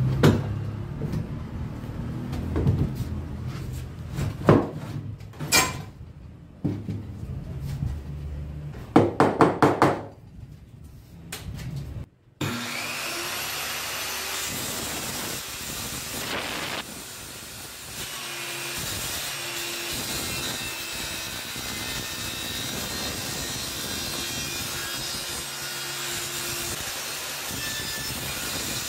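Plywood crosscut sled being handled on a homemade table-saw top: a few wooden knocks and a quick run of taps. About twelve seconds in this changes to a steady wood-on-wood rubbing as the sled is slid back and forth along the table on its runners.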